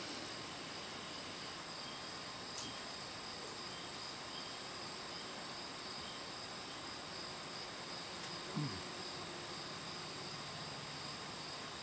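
Steady chorus of singing insects: several continuous high trills layered together. About two-thirds of the way through, a short low sound falls quickly in pitch.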